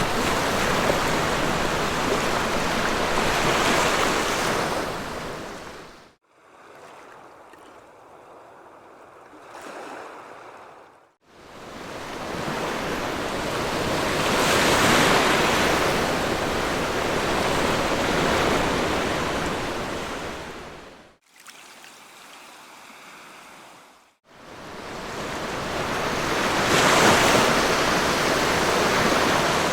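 Sea waves breaking and washing up a beach, the surf swelling and easing. Twice the sound cuts abruptly to a much quieter, distant wash for a few seconds before the loud surf returns.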